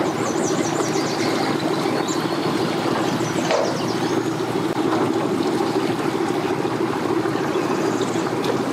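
Yamaha 200 outboard motor on a center-console boat, running steadily at low speed with an even hum.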